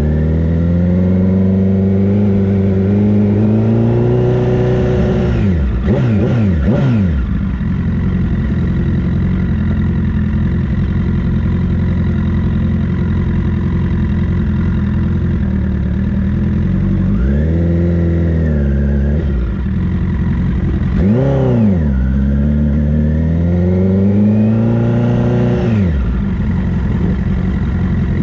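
Sport motorcycle engine running while ridden in traffic. The revs rise and fall sharply a couple of times early on, then the engine idles steadily for about ten seconds while stopped. It then revs up and down several times as the bike pulls away and shifts through the gears near the end.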